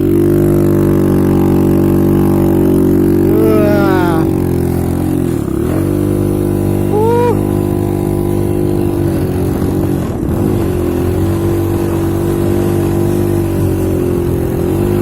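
Yamaha V80 two-stroke motorcycle engine running hard at a steady, high pitch under load on a steep climb, dipping briefly twice, where the riders had said it lacks the power to make it up.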